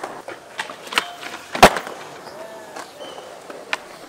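Skateboard wheels rolling on smooth concrete, broken by sharp clacks of the board, the loudest a hard snap about a second and a half in.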